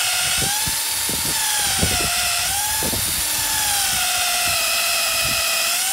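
Cordless drill running continuously, boring a hole an inch or two into a wooden fence post; its motor whine wavers slightly in pitch as the bit takes the load.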